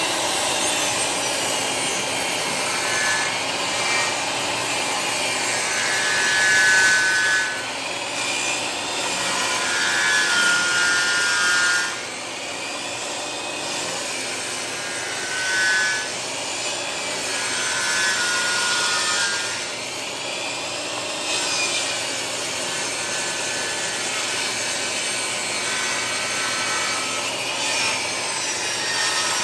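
Jobsite table saw running and ripping rough-sawn boards, the blade cutting along a bark-covered live edge. Loudness swells and eases as the wood is fed through, with a brief high whine coming and going.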